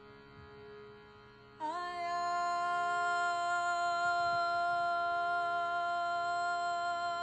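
A woman's voice singing a long, steady held note over a sustained drone tone, in a slow meditative chant. For the first second and a half only the quiet drone sounds; then the voice comes in with a slight upward scoop and holds the note.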